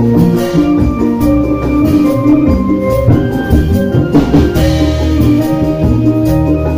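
Obrog barongan percussion ensemble playing: hanging bronze gongs, small handheld gongs and cymbals, and drums struck together in a continuous rhythmic piece, with ringing metallic pitched tones over low drum beats.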